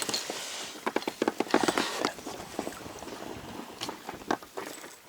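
Freshly landed perch flapping about in the landing net and boat: a quick, uneven run of knocks and pattering, busiest in the first two seconds.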